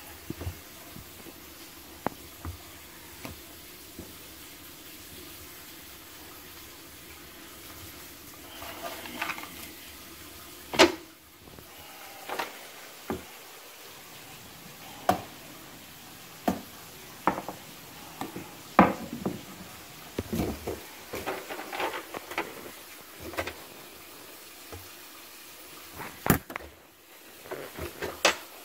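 Irregular knocks and clinks of hand tools and parts being handled, spaced a second or more apart, the loudest about eleven seconds in and again near the end, over a steady low hiss.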